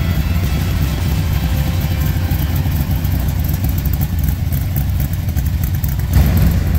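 Car engine running with a heavy low rumble, getting louder about six seconds in.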